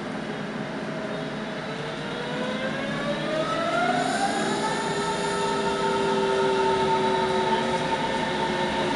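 Berlin S-Bahn class 481/482 electric multiple unit accelerating away from a station, heard from inside the car. Its electric traction drive whines in several tones that rise in pitch for about the first five seconds and then hold steady, over the rolling rumble of the train, which grows louder as it picks up speed.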